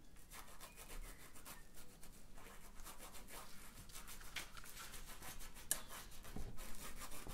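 Paintbrush scratching and rubbing on textured canvas in many short, irregular strokes, faint.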